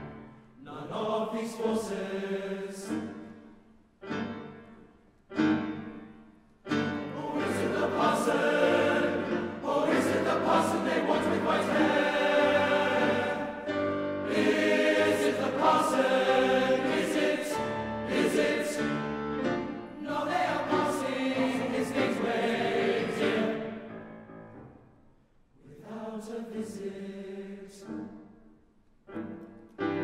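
Male-voice school choir singing in harmony. Short phrases separated by pauses open the passage, then a long, loud sustained stretch dies away about three-quarters of the way through, and softer short phrases follow.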